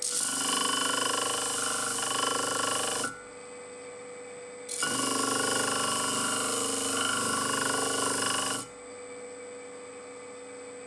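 Steel knife blade ground against a disc sander with an 80-grit disc: two passes of about three and four seconds of harsh grinding noise, with the sander's motor humming steadily in the gaps. The grinding takes off the oxide scale and soft decarburised skin left by heat treatment.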